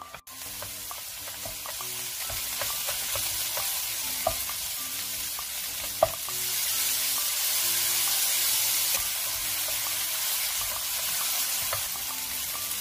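Seasoned leafy namul greens sizzling as they are stir-fried and turned with a wooden spatula in a nonstick wok, with a couple of sharp taps of the spatula on the pan. The sizzle grows louder after about six seconds. Light background music plays underneath.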